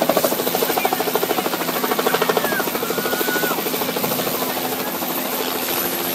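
Air ambulance helicopter's rotor chopping in a rapid, even beat over a steady hum, as it comes in over the field.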